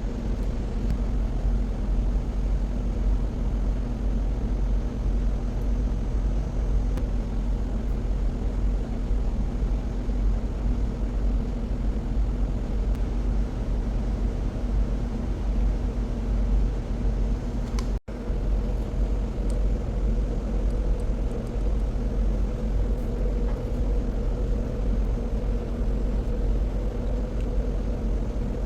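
Steady low machinery drone and electrical hum of an underground hydroelectric powerhouse, with several steady hum tones over a deep rumble. It cuts out for an instant about two-thirds of the way through, then carries on unchanged.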